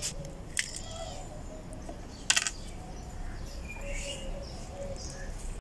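A few sharp clicks and one louder knock about two seconds in, from tapping and picking at a cracked ostrich eggshell, with birds chirping faintly in the background.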